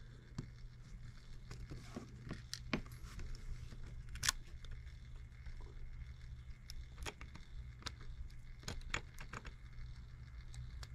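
Light metallic clicks and taps as fingers work the cast steam chest cover loose from the valve chest of a Stuart 10V vertical steam engine, with one sharper click about four seconds in. A low steady hum runs underneath.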